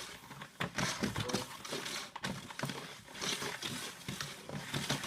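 Irregular knocks, clicks and rustling as the vacuum cleaner is handled and its power cable pulled out for plugging in; the motor is not yet running.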